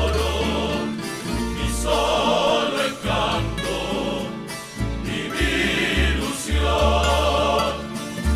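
Music: a pasillo sung by several voices in a serenata-style arrangement over a steady bass line.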